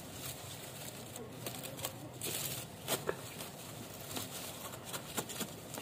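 Aglaonema leaves rustling and brushing together as the plant's stems are handled and pulled apart, with scattered small clicks.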